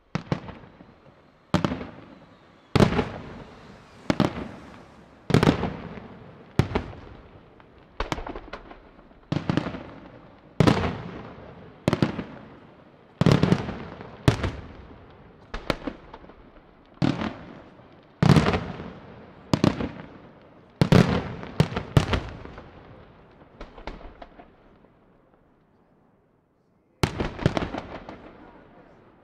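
Aerial firework shells bursting one after another, a sharp bang about every second and a quarter, each trailing off in a rolling echo. Near the end the bangs pause for a couple of seconds before one more burst.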